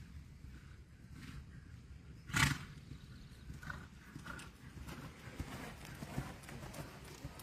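A Paint horse trotting, with soft hoofbeats on the arena footing. About two and a half seconds in comes one short, loud, noisy blow of breath, a snort.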